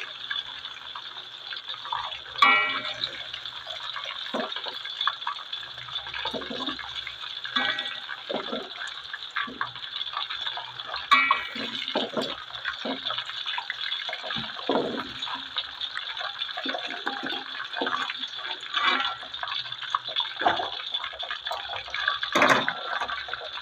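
Marinated chicken pieces frying in hot oil in a steel wok: a steady sizzle. A few sharp metallic clinks come through as a slotted metal spatula knocks against the wok and a wire strainer.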